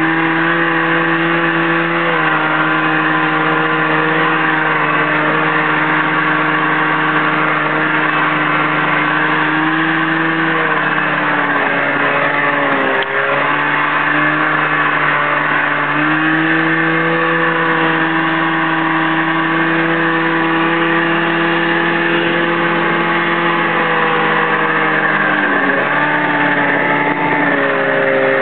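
1978 Arctic Cat Jag snowmobile's two-stroke engine running under way on the trail, its note easing off twice as the throttle is let back (about a third of the way in and again near the end) and climbing back each time. The machine is not making full power, which its owner puts down to an unknown fault in the rebuilt engine.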